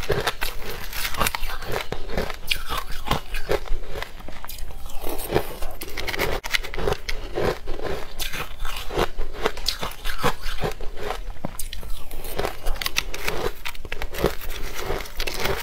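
Close-miked eating sounds: a person chewing crunchy food, a steady run of rapid crisp crunches and small clicks.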